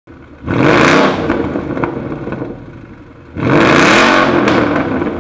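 Ford Mustang GT 5.0 V8 with an Armytrix valvetronic exhaust, revved twice: each rev rises in pitch and falls back, the second held a little longer, with a lower idle rumble between them.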